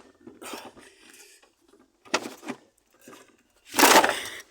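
Knocks and scrapes of a car battery being handled and set into its tray in the engine bay. A short knock comes about half a second in and another about two seconds in. The loudest, longest scrape comes near the end.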